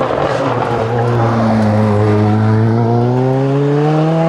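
Renault Alpine A110 rally car's engine under hard acceleration, its pitch dipping slightly about a second in and then climbing steadily as the revs rise, with some tyre noise at the start.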